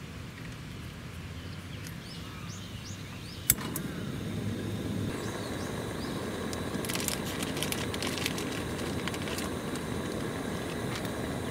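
A single sharp click about three and a half seconds in, then a portable gas burner lit and running with a steady rush of flame.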